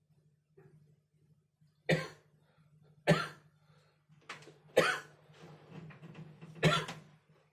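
A person coughing hard: four loud coughs about one to two seconds apart, with smaller coughs and breathing between them.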